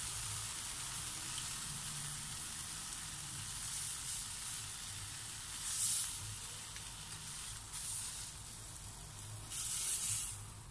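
Chicken legs sizzling as they fry in a non-stick pan in their own rendered fat, with no cooking oil. The sizzle is steady, with brief louder swells about six seconds in and again near the end.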